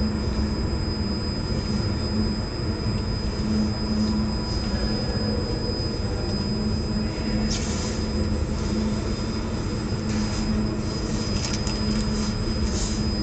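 Steady drone of running checkweigher and conveyor machinery: a low hum with a constant thin high whine. Several short hissing bursts come in the second half.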